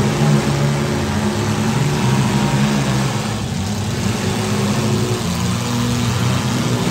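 Several compact demolition-derby cars' engines running and revving together, their overlapping exhaust notes shifting in pitch as the cars drive and push into one another.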